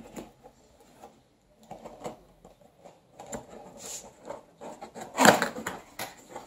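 Cardboard box seal being cut and the flap worked open with a small blade: irregular scraping, rustling and clicking of cardboard, loudest about five seconds in.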